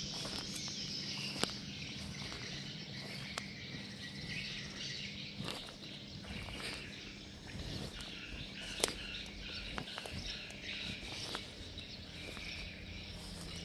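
Outdoor insect and bird ambience: insects chirping steadily with birds calling, over a faint low hum. There are a few sharp clicks now and then, the clearest about nine seconds in.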